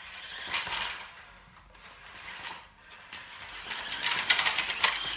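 Loose plastic building bricks clattering and scraping under the wheels of a 6WD RC crawler truck, mixed with the whir of its small 130-size electric motor and plastic gears, a motor too small for the truck. The clatter grows louder about four seconds in as the truck climbs over the pile.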